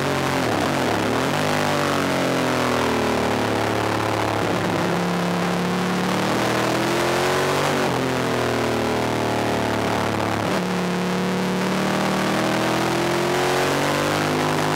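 Onboard sound of a Ducati 1000DS superbike's air-cooled L-twin at racing speed, with rushing wind noise. The engine note drops and climbs again several times as the rider shuts off and downshifts into corners, then gets back on the throttle and accelerates out.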